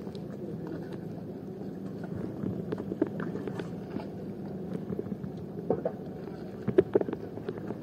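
Boat engine running with a steady low hum. A few sharp clicks and knocks over it, the loudest near the end.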